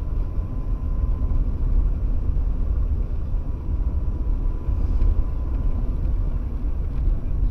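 A car's road and engine noise picked up inside the cabin by a dashcam: a steady low rumble with no distinct events.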